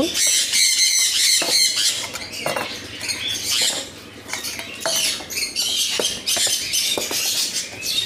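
Caged parrots squawking and chattering continuously. A few sharp clinks come from stainless steel feeding bowls being set down on a wooden bench.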